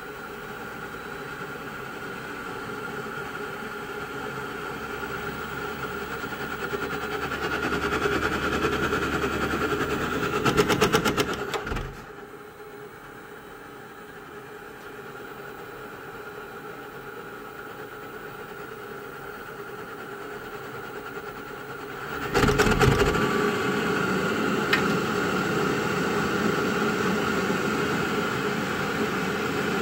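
Navien NR-240A tankless water heater running with a steady hum and whine, building up to a rapid rattling about eleven seconds in and then dropping away suddenly; about ten seconds later it jumps back up with another rattling burst and runs louder again. These irregular loud noises are the fault being troubleshot on this unit.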